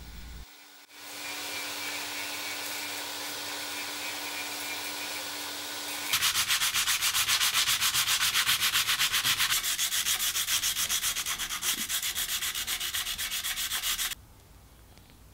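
A rotary tool runs steadily against cured carbon fiber and epoxy for about five seconds. Then a hand sanding block rubs back and forth over the carbon fiber in quick, even strokes, stopping abruptly near the end.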